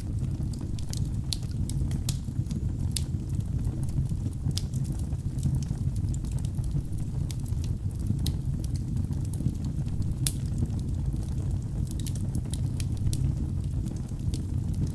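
Wood logs burning in a fireplace: a steady low rumble of flame with frequent sharp crackles and pops at irregular intervals.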